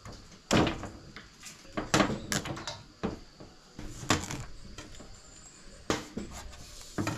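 Cleaver chopping a pumpkin on a stainless steel sink drainboard: a string of irregular sharp chops, the loudest about half a second and two seconds in.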